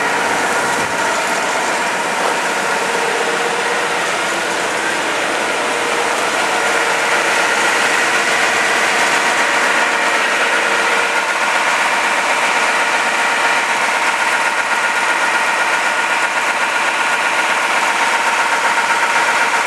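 Gomaco GP 2000 slipform concrete paver's diesel engine running steadily, a constant mechanical drone with a few steady tones in it.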